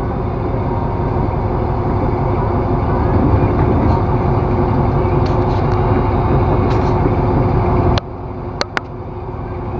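A steady low mechanical rumble that drops off abruptly about eight seconds in, followed by a few sharp clicks.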